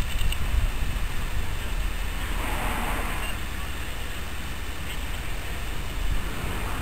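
Diesel shunting locomotive running, a steady low rumble as it hauls a coach slowly along, with a brief rush of noise about two and a half seconds in.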